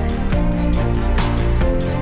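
Background music with a steady bass line and held tones, and a sharp hit a little over a second in.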